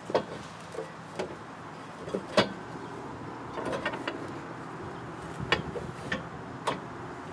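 A series of sharp knocks and clanks, about seven separate strikes with a quick cluster near the middle, the loudest about two and a half seconds in.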